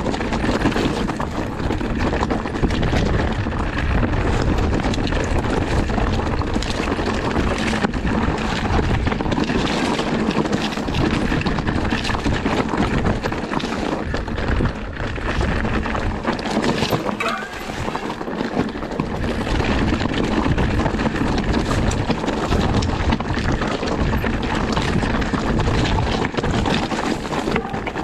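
Electric enduro mountain bike riding down a rough, rocky singletrack: tyres rumbling over stones, with constant knocks and rattles from the bike over the bumps and wind buffeting the microphone.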